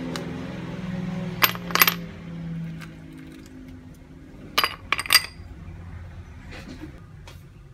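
Ice cubes dropped into a glass tumbler, clinking sharply against the glass: a couple of clinks about a second and a half in, then three more about five seconds in.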